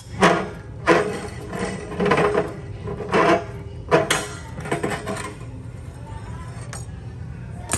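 Metal wrench knocking and clanking against a stuck water heater heating element as it is worked loose. About six loud metallic knocks come in the first five seconds, then it goes quieter.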